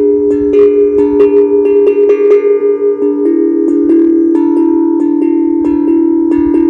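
Steel tongue drum played by hand, struck quickly several times a second, its metal tongues ringing on so that the notes overlap and blend, the pitches shifting as different tongues are played.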